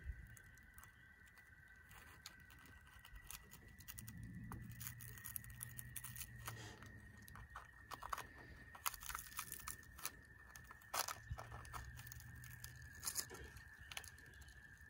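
Faint crackling and tearing of tough Cecropia moth cocoon silk as fingers pick and pull it loose from a twig, in irregular small ticks and crackles.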